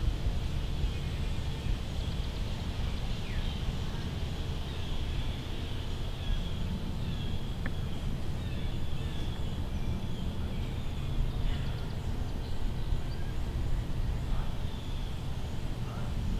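Outdoor ambience: a steady low rumble with faint, scattered bird chirps above it.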